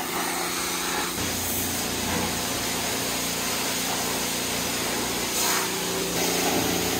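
High-pressure car-wash spray wand blasting water onto a car body, a steady hiss over the hum of the wash bay's pump motor.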